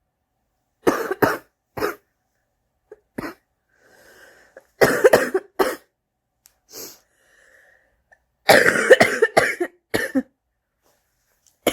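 A person coughing in repeated fits: a smoker's cough. There are two quick coughs about a second in, single coughs after that, a cluster around the middle and the longest, loudest fit near the end, with breaths drawn in between.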